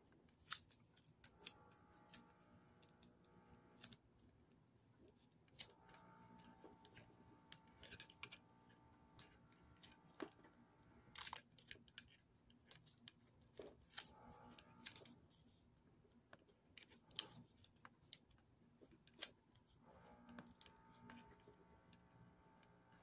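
Faint, scattered clicks and short scrapes as hands handle the lead wires and plastic frame of a small microwave-oven fan motor. The fan itself is not running.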